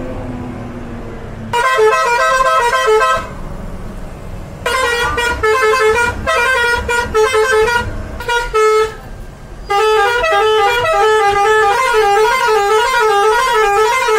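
A bus's multi-tune musical horn playing short melodies in three bursts, the notes stepping up and down: the first about a second and a half in, the second around five seconds in, the last from about ten seconds in. A low engine and road hum runs underneath.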